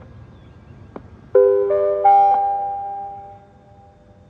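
Federal Signal Modulator 6048 outdoor warning siren's loudspeakers playing a three-note rising attention chime, preceded by a brief click. The notes ring and fade out, the alert tone that opens its recorded test announcement.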